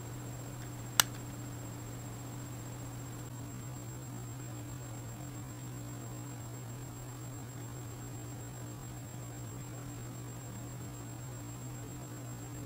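Steady low electrical hum with a thin high whine and a hiss, broken once about a second in by a single sharp click.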